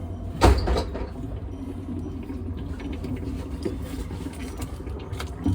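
A single sharp clack about half a second in, as the service-port valves on a tankless water heater are opened, over a steady low rumble.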